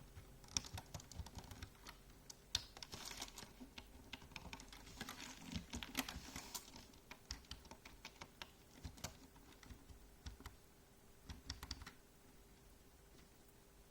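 Computer keyboard being typed on: irregular runs of keystroke clicks with short pauses between them, sparser near the end.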